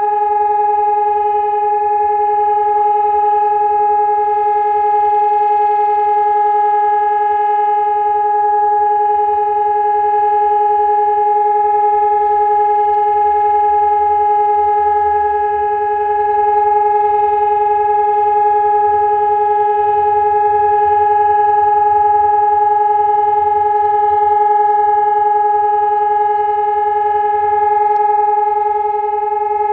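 ESp 750 Maestro electronic civil-defence siren sounding a loud, steady, unbroken tone with no rise or fall in pitch: the continuous test tone of the Czech siren warning system's monthly test.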